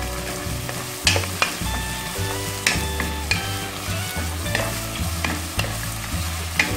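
Wooden spatula stirring onions, garlic and whole spices frying in oil in a stone-coated pot. A steady sizzle runs under sharp clicks and scrapes each time the spatula knocks the pot.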